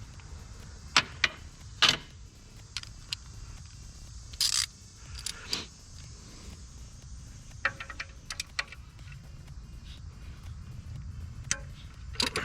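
Scattered metallic clicks and clinks of hand tools, a ratchet and sockets, being handled and fitted, with a short rasping burst about four and a half seconds in.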